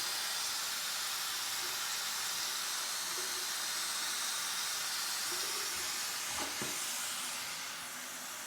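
Steady hiss of water running from a faucet into a sink, with a couple of faint knocks about six and a half seconds in.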